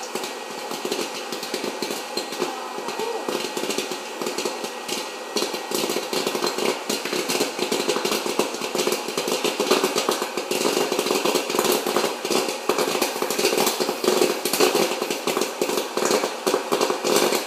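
Hot-air popcorn popper running, its fan blowing steadily while kernels pop rapidly. The popping grows denser and louder about five seconds in, as popped corn blows out of the chute into a steel bowl.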